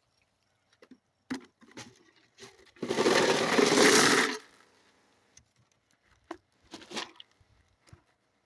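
Hydrogen-peroxide-cleaned rocks knocking and scraping against each other in a screen bucket as they are rinsed, with a loud rushing noise lasting about a second and a half near the middle.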